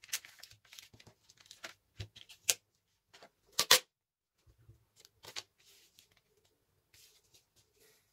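Paper rustling and crinkling as a folded colour-paper purse and a roll of clear packing tape are handled: a run of short rustles, ticks and crackles. The loudest are two sharp crackles, about two and a half and three and a half seconds in.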